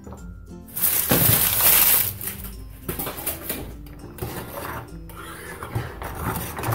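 Wire whisk stirring and scraping in a saucepan of liquid chocolate mixture, loudest in a rush of noise from about a second in to two seconds in, then irregular whisking. Soft background music underneath.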